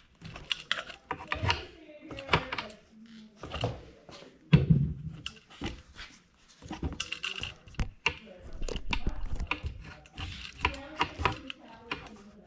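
Metal tool prying and scraping at a crimped ear-style hose clamp on an air compressor hose: irregular clicks, knocks and scrapes of steel on steel as the clamp is worked loose.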